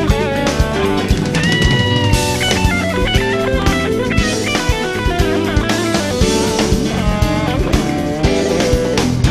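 Background music: a rock track with electric guitar lines over a drum kit beat.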